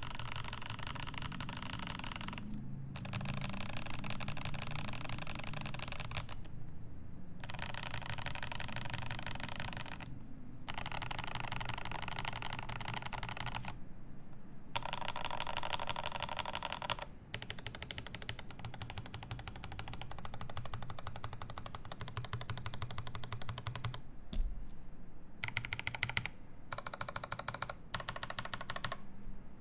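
Rapid, dense mechanical clicking in runs of two to three seconds with short pauses between, over a steady low hum, with one sharp knock near the end.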